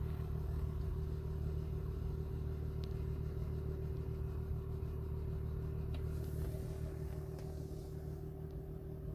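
Blower fan motor of a 1960s Sears Kenmore model 344 space heater running up to speed with a steady hum and a steady whine. The fan turns slowly, which the owner thinks is probably from fan bearings needing to be cleaned of half a century of grime.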